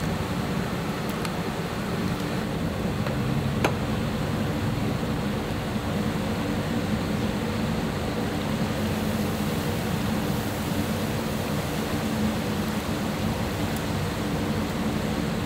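Steady low hum and hiss of background noise, with one sharp click about three and a half seconds in.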